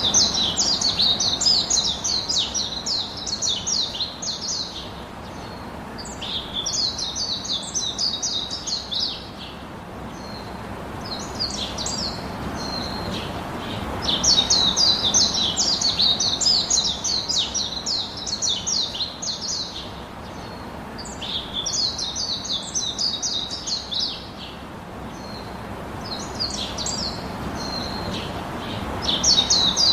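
Birds chirping in rapid, high twittering bouts of a few seconds each, with short pauses between the bouts.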